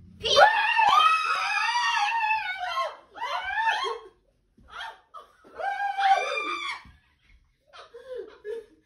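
A woman screaming in fright: a long, high shriek, shorter cries, then a second long shriek. Near the end it breaks into laughter.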